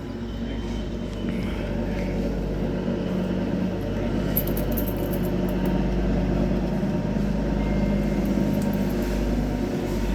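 Steady low mechanical rumble with a constant hum, like a motor vehicle's engine running nearby.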